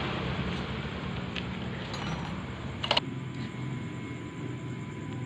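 Honda Karisma motorcycle's single-cylinder engine running steadily, an engine that smokes white; a sharp click about three seconds in.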